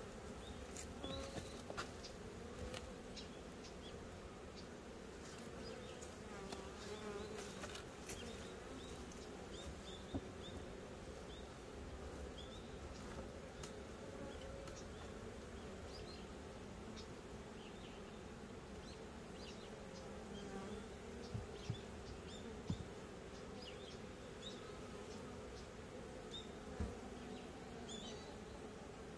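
Honeybees buzzing around a wooden hive, a steady faint hum whose wingbeat tones drift up and down.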